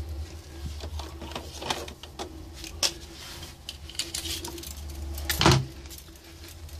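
Wooden parts and hand tools being handled on a workbench: scattered clicks and knocks, the loudest about five and a half seconds in, over a steady low hum.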